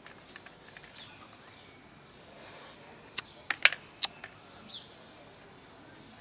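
A quick run of sharp plastic clicks and taps a little past the middle, as a clear plastic food-container lid is handled and set down on pavement. Birds chirp faintly in the background.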